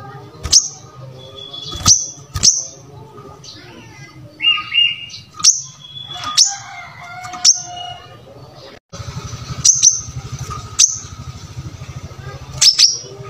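Brown-throated sunbird singing: short, sharp, high chirps at irregular intervals, with a few lower whistled notes in between, over a steady low hum.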